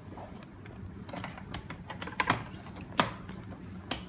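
Irregular light clicks and taps of the door lock's back-panel parts being handled and pressed into place, with two sharper knocks about two and three seconds in.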